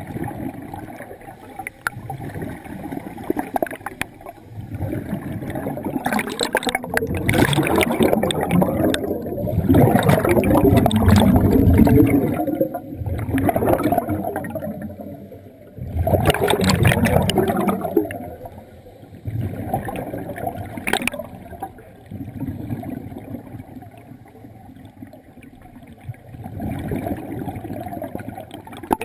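Underwater bubbling and gurgling water, heard in several loud rushing surges through the middle and quieter at the end.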